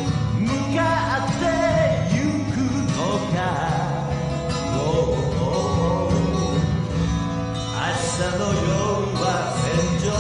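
Music: a song with singing over guitar and a steady bass line.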